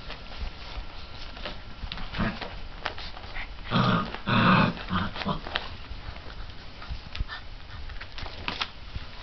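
Mastiff puppies play-fighting: a short, loud burst of puppy growling about four seconds in, with scuffling paws around it.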